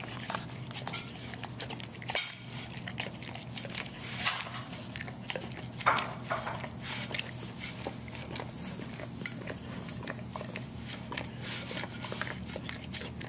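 A dog licking a ceramic plate, its tongue lapping and clicking against the glazed surface in a quick, irregular patter, with a few louder clacks about two, four and six seconds in.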